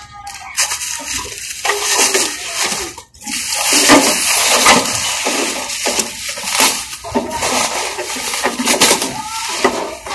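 Clear plastic wrapping crinkling and rustling as it is pulled and peeled off a new gas stove, loud and continuous, with a brief break about three seconds in.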